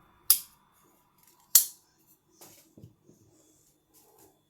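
Two sharp metallic clicks about a second and a quarter apart from a Stat Gear Ledge folding pocketknife, its thumb-stud blade snapping open and shut, followed by faint handling knocks.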